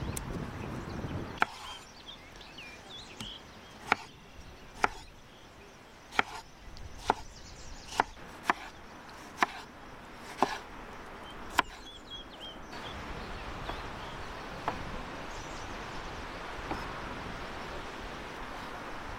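Kitchen knife dicing tomatoes on a wooden cutting board: about ten sharp, irregular knocks of the blade on the wood, roughly one a second, then a few fainter ones over the last third.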